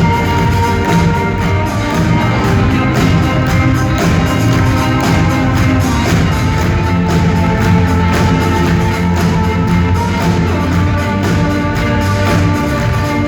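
Live band playing an instrumental passage of a pop song with a steady drum beat and sustained chords, in an audience recording of poor quality.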